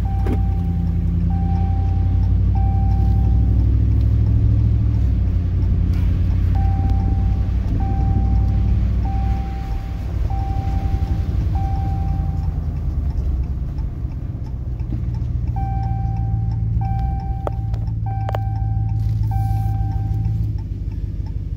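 Vehicle engine and tyre noise heard inside the cabin while driving on a wet road. Over it, an electronic warning chime beeps about once a second in runs of three to five beeps, with a couple of sharp knocks late on.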